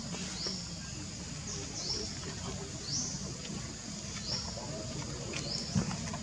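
Forest ambience: a steady high insect drone with a short rising chirp repeating about once a second, over a low rumble. One dull thump near the end.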